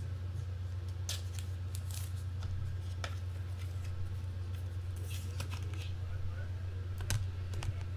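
Scattered short clicks and rustles from packaging being handled off-camera, over a steady low hum.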